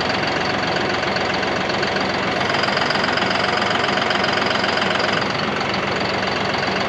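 John Deere tractor's engine running steadily close by.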